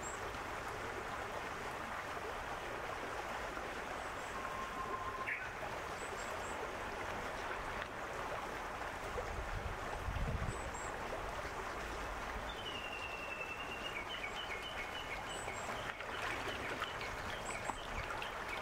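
Shallow river water flowing steadily, with small birds calling over it: brief high chirps every second or two, and about two-thirds of the way in a longer whistled note followed by a run of short repeated notes.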